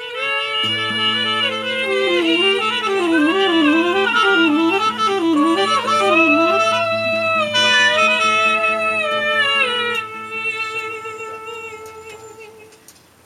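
Live music from a saxophone, guitar and voice trio: a wavering melody with quick up-and-down turns over a held low drone, settling into long notes and fading away over the last few seconds.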